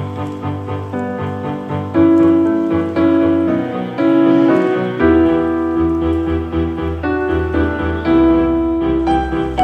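Gentle background piano music, with chords changing about once a second; a deeper bass part comes in about halfway through.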